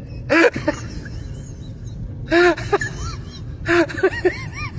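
A person's voice making short high-pitched vocal sounds in several quick groups, each sound rising and falling in pitch, over steady background noise.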